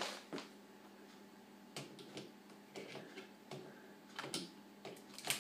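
Faint, irregular light knocks and shuffles of a person moving and dancing on a floor in a small room, about one every half second to a second, the loudest just before the end.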